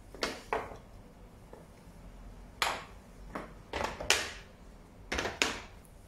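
A bamboo caddy holding glass jars being handled and set down on a marble countertop: about eight short knocks and clinks, several in quick pairs, the sharpest about four seconds in.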